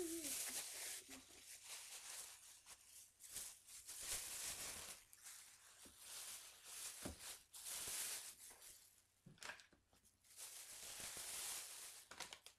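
Plastic shopping bag rustling and crinkling in irregular bursts as items are packed into it.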